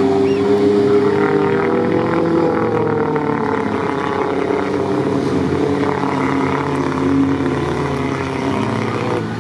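Off-road 4x4 engines revving hard, several at once, their pitches rising and falling against each other.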